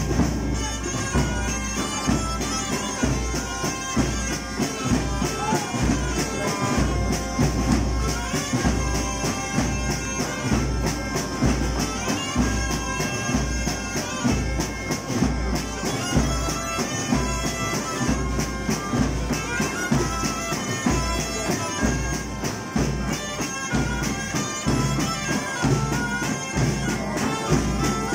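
Zampogna bagpipe playing a folk tune over its steady drone, with bass drums beaten with sticks in a regular beat underneath.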